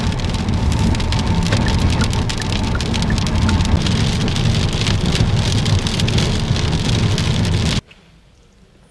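Heavy rain pattering on a car's roof and windshield while driving, with a steady low road and tyre rumble underneath; it cuts off suddenly near the end.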